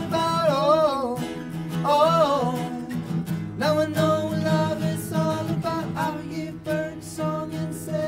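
Two acoustic guitars strummed while two men sing; the voice bends through wavering held notes in the first few seconds.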